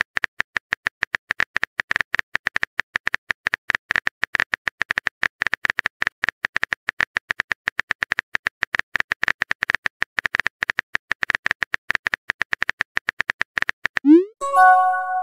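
Phone-keyboard typing sound effect from a texting-story app: a fast, even run of light clicks, about ten a second. Near the end it stops, and a short rising pop and a brief chime follow as the message is sent.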